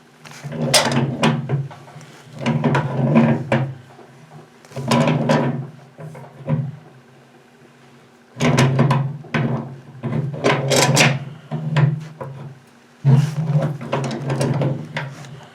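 Galvanized pipe elbow being handled and threaded onto the washing machine tub's drain outlet: about six separate bursts of metal clinking and scraping, with pauses in between.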